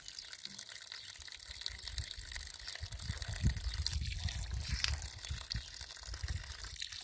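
Water running and splashing from a metal water tank's tap while a small child's face is washed with cupped hands, over a low rumble that swells about halfway through.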